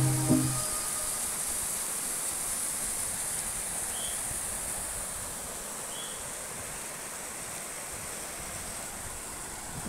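Water rushing and splashing over a small rock cascade as a steady, even rush that slowly grows quieter.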